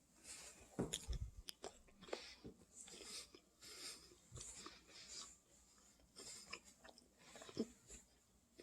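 Faint chewing with scattered small clicks and crackles: a person eating, with a soft low thump about a second in.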